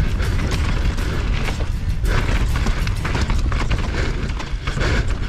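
Wind buffeting a helmet- or chest-mounted camera microphone during a fast downhill mountain-bike descent, with the bike's tyres crunching over gravel and rocks and the frame and chain rattling in quick clicks and knocks.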